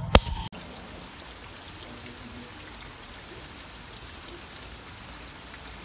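A brief sharp knock as a hand touches the phone, then from about half a second in, steady rain falling on trees and plants, with a few faint drips.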